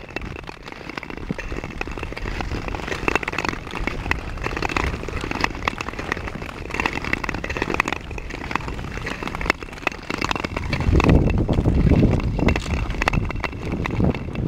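Ice skate blades gliding and scraping over smooth lake ice, a dense run of fine crackling ticks. Wind buffets the microphone from about ten seconds in.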